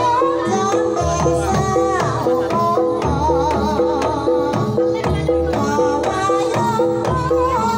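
Live Banyumasan gamelan music for tayub: a kendang hand drum beats a steady rhythm under short repeated notes from the keyed instruments, while a sinden sings a wavering, ornamented melody over them.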